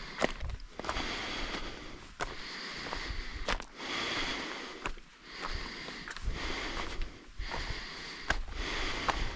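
A hiker breathing hard, with the breaths swelling and fading about once a second, and scattered sharp clicks of footsteps on the trail.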